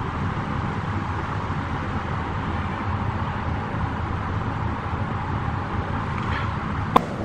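Steady background room noise with no distinct source, holding an even level, and a single sharp click near the end.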